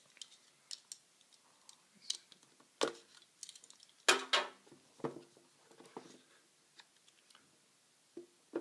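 Scattered clicks, taps and scrapes of packaging being opened and handled, with the loudest knocks about three and four seconds in.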